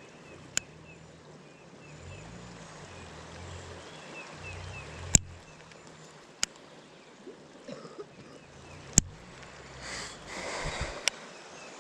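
Baitcasting reel being handled: sharp clicks a few seconds apart, with wind rumbling on the microphone and faint high chirps. About ten seconds in comes a short rushing burst, a cast that leaves the line kinked.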